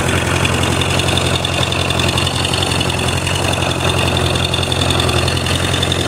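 Old tractor engine running steadily with an even low drone.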